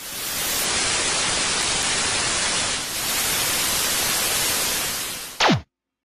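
Television static hiss, steady, with a brief dip near the middle. Near the end a quick falling electronic sweep comes, and then the sound cuts off.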